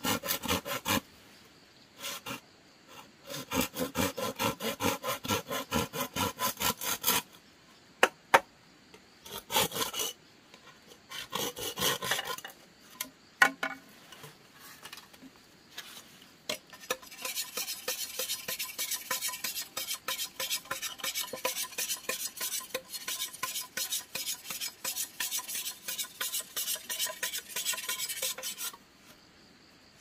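Rapid rasping strokes of a hand tool, in several short runs with pauses between, then one long unbroken run through the second half. A few sharp knocks stand out near the eighth and thirteenth seconds.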